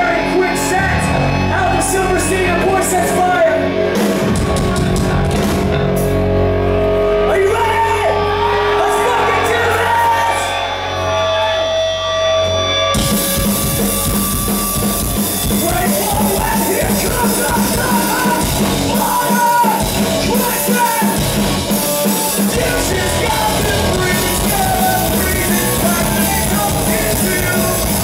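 Live rock band playing loud through a club PA, with a singer yelling into the microphone. About 13 seconds in, the full band crashes in together with fast, driving drums.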